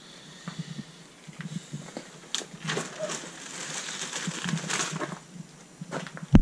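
Scraping and rustling of cardboard and debris as a dusty old Dacia 1300's boot lid is lifted and a box slides off it, with scattered small knocks. A single sharp knock near the end is the loudest sound.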